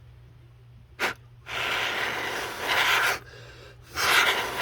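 Three blasts of air blowing dust out of a gauge housing: a short puff about a second in, a long blow of about a second and a half, then another near the end.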